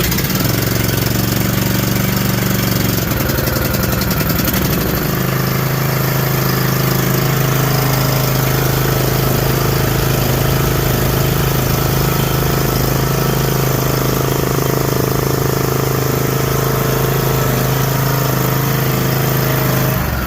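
John Deere D120 lawn tractor's 21 hp Briggs & Stratton engine running, just started on choke after a no-start. Its note shifts a few seconds in, then holds at a steady, higher speed.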